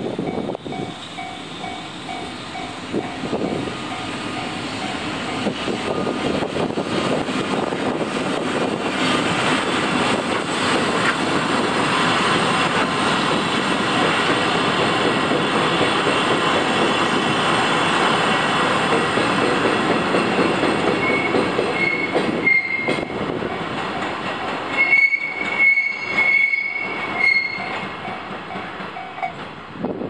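Freight train carrying the Shiki 611 heavy-duty transformer car passing over a level crossing. The wheels rumble on the rails, building to loudest mid-way, then give high wheel squeal near the end as the train clears. A level-crossing warning bell rings in a steady pulse underneath.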